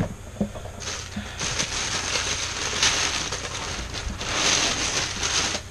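Tissue paper rustling and crinkling as it is pulled back and lifted out of a shoebox by hand, starting about a second in and stopping just before the end.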